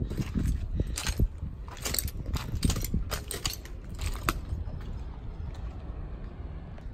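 Footsteps crunching and scraping on loose stone and gravel rubble, irregular crisp steps over a steady low rumble.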